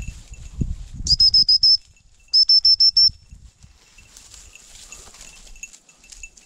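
Dog whistle blown in two quick runs of short, high pips, about six pips each with a brief gap between the runs, the repeated-pip recall signal used to call a gundog in. Rustling through dry brush in the first second.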